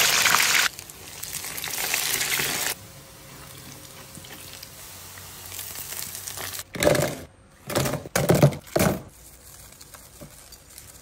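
Breaded chicken nugget sticks going into hot oil in a frying pan. The oil sizzles loudly at first, drops back a little after about a second, and settles to a quieter, steady frying hiss after about three seconds. Several short noises come in the last few seconds.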